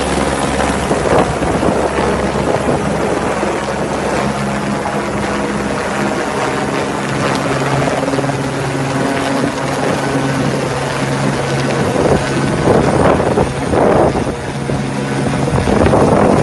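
Helicopter running close by, its rotor and turbine giving a steady drone while it lifts a load on a long cable. Wind gusts on the microphone grow stronger near the end as the engine tones fade.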